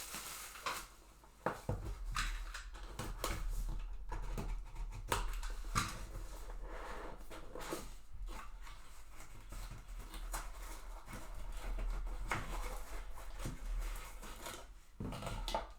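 Hands opening a sealed box of trading cards: irregular crinkling, scraping and tapping of cardboard and wrapping, with a steady low electrical hum underneath.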